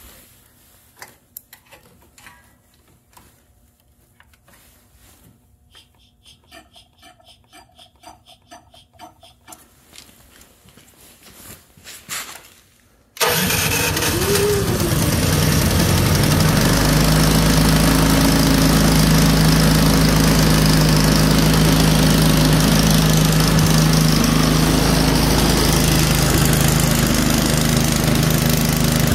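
Troy-Bilt Storm 2410 snow blower's single-cylinder engine being cold-started: after about 13 seconds of quiet handling clicks, the electric starter cranks it and it catches at once. It then runs steadily at an even, fast speed.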